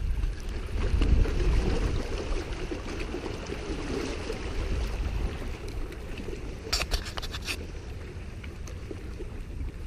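Wind buffeting the microphone beside open water, a heavy low rumble that eases after the first few seconds. About seven seconds in comes a quick run of a few sharp clicks.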